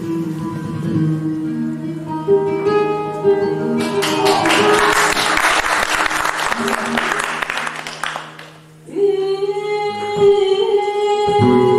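Music: acoustic guitar with singing. A dense, rapidly strummed stretch in the middle gives way, after a brief dip, to long held notes.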